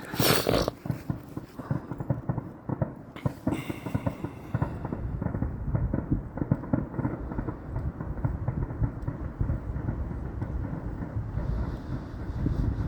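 Fireworks going off all around at a distance: a continuous rumble of overlapping bangs and crackles, with a louder burst at the very start and another about three seconds in.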